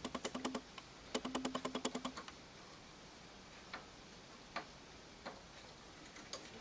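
Two short runs of rapid, even clicking, about ten clicks a second, each with a low hum under it, followed by a few single faint clicks.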